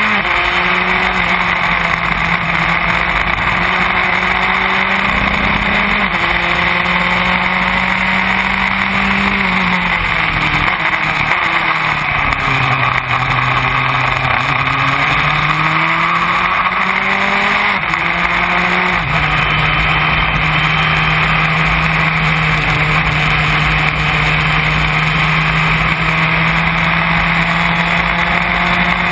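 Formula Enterprise race car's engine running hard, heard from the open cockpit over a steady rush of wind. About nine seconds in the pitch drops as the car slows for a corner, then climbs again as it accelerates out, and near the end it holds steady.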